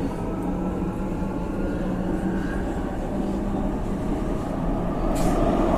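Subway train running, a steady low rumble with a constant hum, getting louder toward the end with a brief sharp click about five seconds in.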